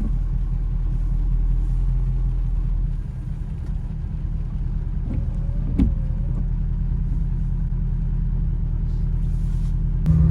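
Ford F250 pickup driving, heard from inside the cab: a steady low engine and road drone. There is a single short click with a brief squeak about six seconds in.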